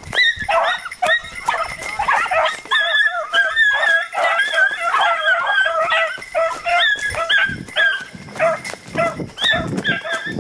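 A pack of beagles baying together, many overlapping calls with hardly a break, as the hounds run a rabbit's track close by. A few dull thumps come near the end.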